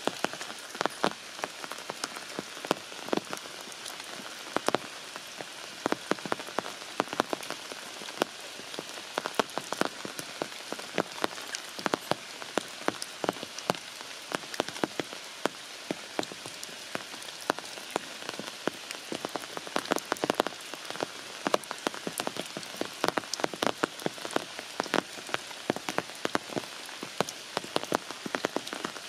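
Rain falling steadily: an even hiss with many sharp individual drop impacts close by.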